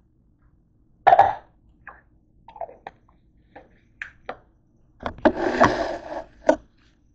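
A short cough-like throat sound about a second in. It is followed by small clicks and knocks as a plastic prescription pill bottle is handled and set down on a counter, then a louder rough burst lasting about a second near the end.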